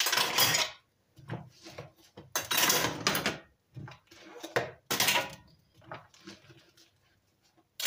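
Dishes being washed by hand in a plastic bowl of soapy water: several short bursts of splashing and scrubbing, a second or less each, with quieter gaps between.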